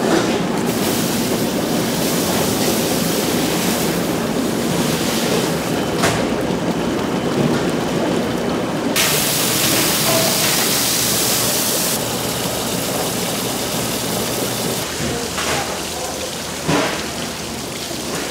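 Water running and splashing as rice is washed in a large perforated stainless-steel basin, with a louder hissing stream from the tap about nine to twelve seconds in.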